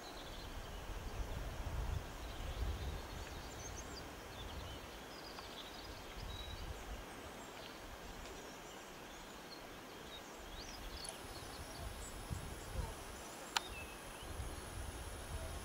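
Rural outdoor ambience: faint, scattered bird chirps over an uneven low rumble, with one sharp click near the end.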